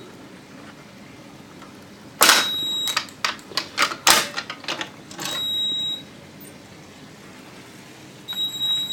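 Clicks and knocks of hands working on a fire alarm control panel, with a few short, high electronic beeps. The longest beep lasts under a second near the middle.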